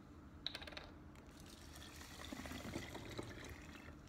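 Water poured from a plastic bottle through a plastic funnel into a plastic bottle of lemon pieces and sugar, running steadily as it fills, after a few light clicks about half a second in.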